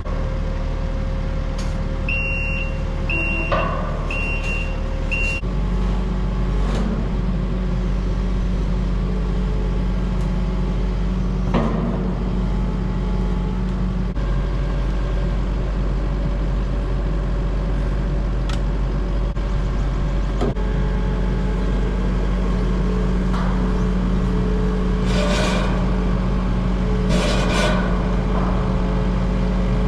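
Kubota SVL75 compact track loader's diesel engine running steadily. Four short high beeps sound about two to five seconds in, the engine note changes soon after, and a few short knocks and rattles come near the end.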